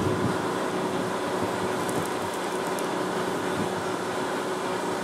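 Steady background noise with a constant low hum underneath; no distinct events.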